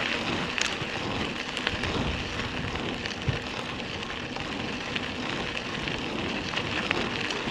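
Bicycle tyres rolling over a gravel path: a steady crunching hiss with scattered small ticks of grit.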